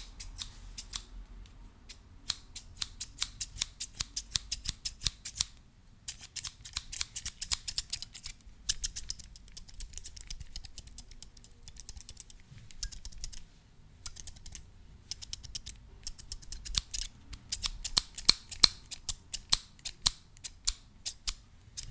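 Metal scissors snipping in quick runs of sharp clicks, several a second, with short pauses between the runs.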